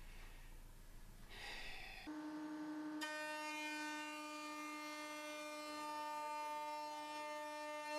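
Electric router spindle running with a steady whine that comes in about two seconds in and takes on a brighter, buzzier edge a second later.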